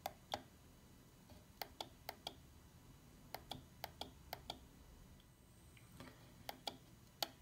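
Small tactile push buttons on a LaForge FPV goggle receiver module clicking faintly under a fingertip, about fifteen presses in quick clusters of two to five with short pauses between.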